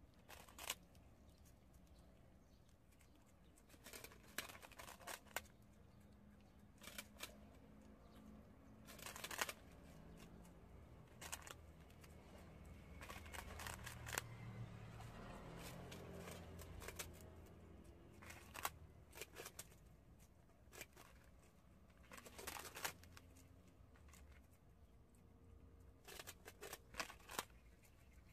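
Prairie dogs gnawing on a puffed rice cake: short, crisp crunches and snaps at irregular intervals, some in quick little clusters.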